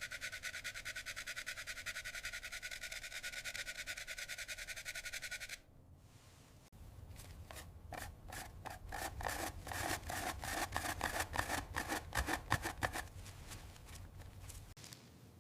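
A fast, even pulsing electronic tone cuts off after about five and a half seconds. A second or so later comes a run of quick rubbing or scrubbing strokes, which grow louder and then die away near the end.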